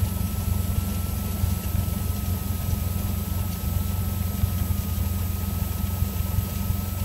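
Cessna 172's four-cylinder Lycoming IO-360 engine and propeller running steadily at low power as the plane rolls out and taxis after landing. It makes an even drone, with a thin steady high tone above it.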